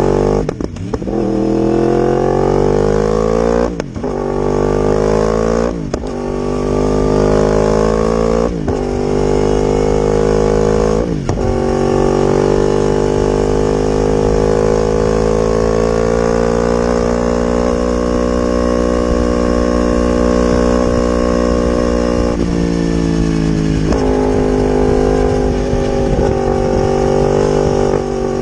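Yamaha R1's inline-four engine and exhaust accelerating hard, the pitch climbing in each gear and dropping sharply at five quick upshifts. It then holds a steady high engine speed, easing off slightly about two-thirds of the way through before settling again.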